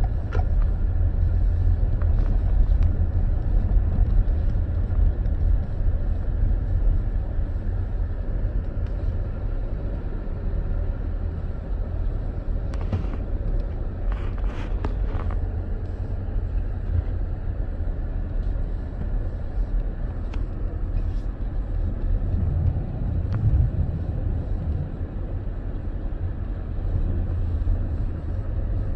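Car being driven, a steady low rumble of engine and road noise heard from inside the cabin, with a few brief clicks about halfway through.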